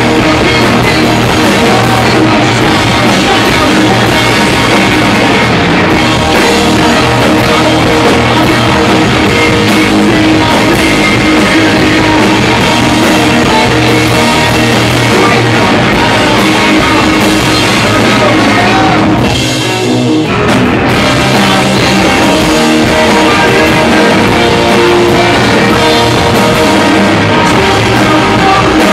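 A rock band playing live and loud: electric guitars, drum kit and a lead vocal. About two-thirds of the way through there is a short break where the cymbals and high end drop away before the full band comes back in.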